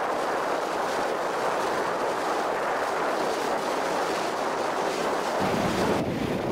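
Wind rushing over the microphone mixed with the wash of choppy lake water from a moving boat. A low rumble joins in near the end.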